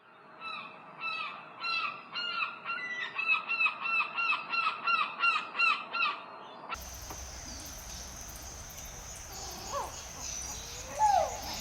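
A bird calling over and over, about two short, hooked, honk-like calls a second. About two-thirds of the way through it cuts abruptly to a steady hiss with a few scattered calls, the loudest just before the end.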